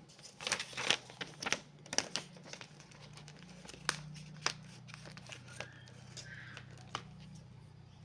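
A sheet of paper being folded and creased by hand into a paper airplane: irregular rustles and crinkles, busiest in the first couple of seconds, then sparser.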